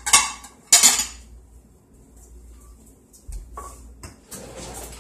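Crockery clattering as a plate is taken out and handled: two sharp clinks in the first second, then quieter knocks and handling sounds later on.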